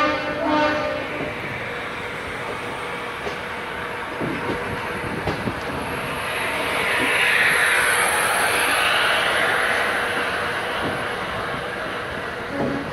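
A train horn sounding and ending about a second in, then the passenger coach rolling slowly over the rails with occasional wheel clacks at rail joints. A broad hiss swells and fades in the middle.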